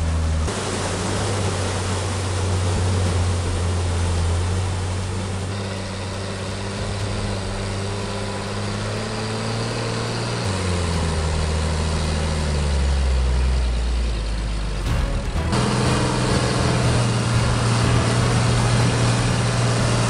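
Engine of a heavy forestry tractor running under load as it pulls a loaded log trailer through deep mud and water. Its pitch drops about ten seconds in, and the sound changes abruptly about fifteen seconds in.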